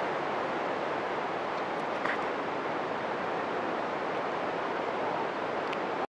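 Steady rushing roar of a large waterfall, an even noise that stays the same throughout.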